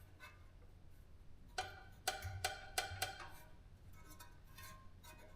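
Small metal parts clinking together in a quick run of sharp, ringing clinks about a second and a half in, with a few fainter clicks later, as pop rivets are sorted through.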